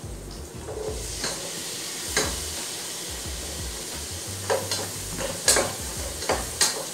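Diced carrots and potatoes sizzling in hot oil and butter in a pot, with the sizzle picking up about a second in. They are stirred with a metal ladle that knocks against the pot a few times.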